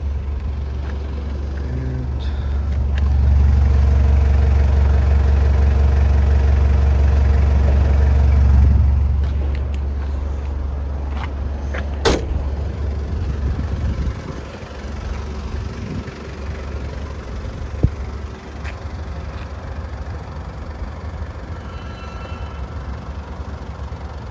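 Low, steady rumble of a motor vehicle engine, swelling louder for several seconds and then easing off. A single sharp click comes about halfway through.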